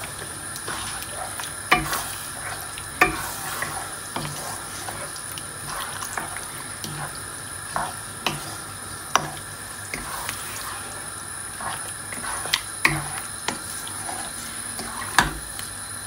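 Wooden spatula stirring and scraping chicken in a thick yogurt masala in a non-stick frying pan, with irregular knocks against the pan over a soft, steady sizzle from the low flame.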